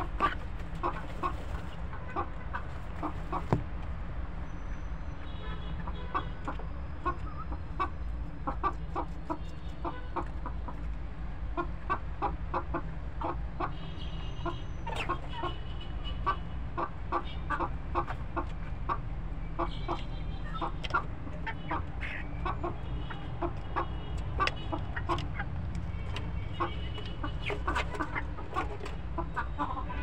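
A flock of domestic chickens clucking continuously, with groups of higher calls now and then, over a steady low hum.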